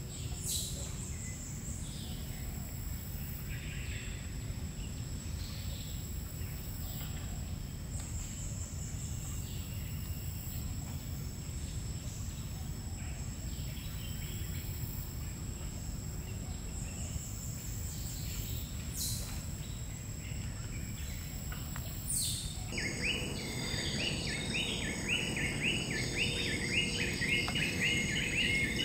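Tropical forest ambience: a steady high insect drone with scattered short bird calls over a low background rumble. About 22 seconds in the sound changes abruptly to a fast, continuous run of repeated chirps.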